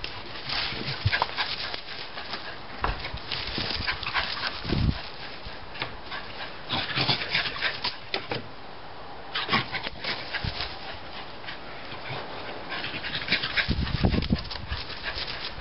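A small dog rummaging in a soil bed under a shrub, scrabbling and rustling in short irregular bursts, with the dog's own snuffling and panting.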